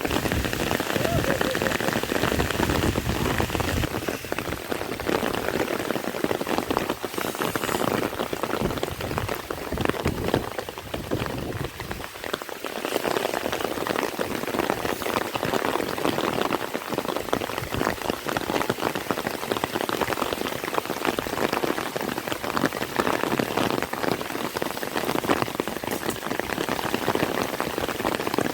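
Heavy rain falling steadily, a dense stream of drops hitting a surface.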